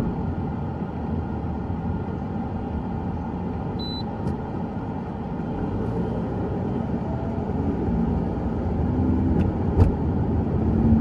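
Steady road and engine noise of a moving car, with a brief high beep about four seconds in.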